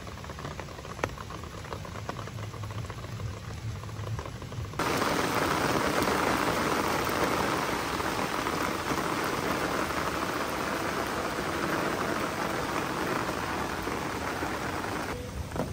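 Rain falling steadily as an even hiss of drops. It turns suddenly much louder and heavier about five seconds in.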